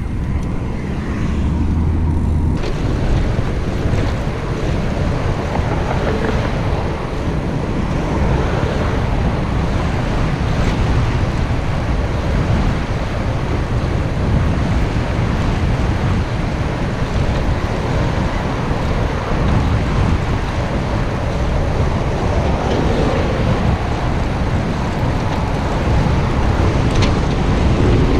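Wind rushing over the camera microphone of a moving bicycle: a loud, steady rumbling hiss.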